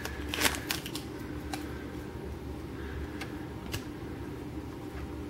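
Foil wrapper of a Panini Prizm card pack crinkling briefly, then a few soft, separate clicks as the football cards are slid one behind another by hand, over a low steady hum.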